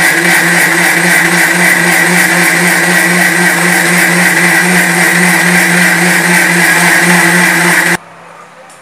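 Electric mixer grinder (mixie) with a stainless-steel jar running steadily at full speed, a loud hum with a high whine, as it grinds soaked rice and water into a thin, smooth batter. It is switched off and stops suddenly about eight seconds in.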